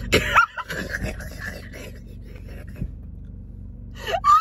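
Excited non-speech human voices: a sharp high squeal with a rising pitch right at the start, quieter sounds after it, then shrieking laughter breaking out near the end. A low steady hum runs underneath inside the car.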